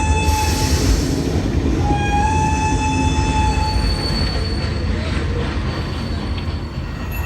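Train sound effect played over the show's loudspeakers: a held horn-like tone sounds twice, each time for about a second and a half, over a steady low rumble.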